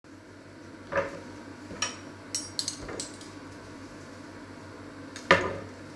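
Metal kitchen utensils clinking and knocking: a few short clicks and clinks, some with a brief metallic ring, and one louder knock a little after five seconds, over a low steady hum.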